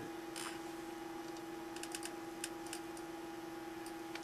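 Scattered keystrokes clicking on a computer keyboard, over a steady low hum.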